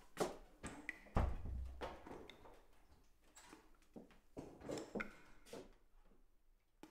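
Scattered light knocks and creaks of footsteps on a wooden floor and wooden chairs being handled, with a heavier low thump about a second in.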